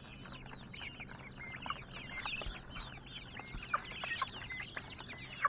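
A crowd of young chickens peeping and cheeping without a break, with a few sharp taps as their beaks peck at food held against the wire.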